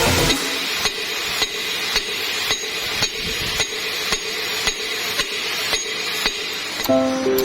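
A steady series of sharp taps, about two a second, over a faint hiss. Music with sustained tones comes in near the end.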